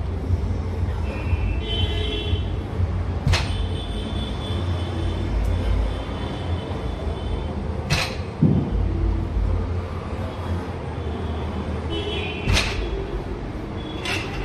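Loaded barbell with iron plates set down on a lifting platform between deadlift reps: three sharp clanks about four and a half seconds apart, some with a brief metallic ring of the plates. A steady low hum runs underneath.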